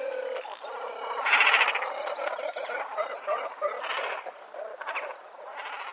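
A chorus of rapid, chuckling, croaking animal calls repeating throughout, loudest about a second in.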